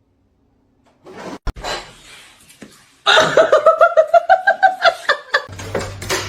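A person laughing hard: a quick, even run of 'ha-ha' beats, about six a second, after a few softer sounds and a sharp click. A low steady hum comes in near the end.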